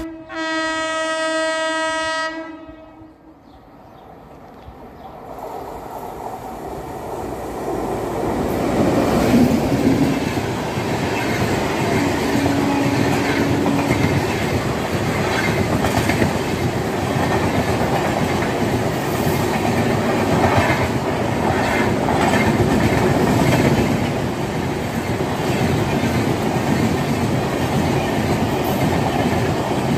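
A train horn sounds one long note for about two seconds. The noise of an Indian Railways WAP-7-hauled express then builds as it approaches and passes at full speed, with its LHB coaches rolling by close at hand and the wheels clattering over rail joints.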